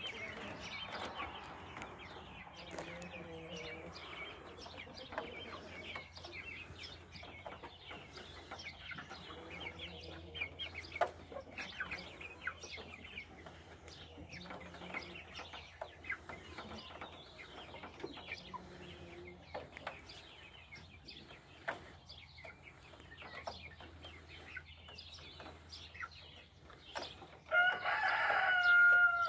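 Lavender Orpington chickens pecking feed from a metal trough feeder: a run of sharp clicks and taps, with soft low clucks now and then. Near the end a loud, drawn-out chicken call lasts about a second and a half.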